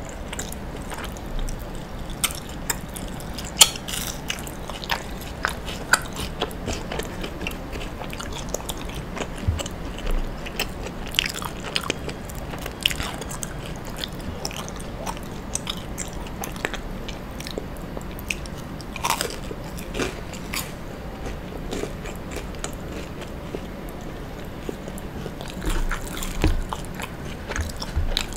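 Close-miked biting and chewing of soft grilled mochi with a charred crust: sticky mouth sounds with many short, irregular clicks and an occasional crunch.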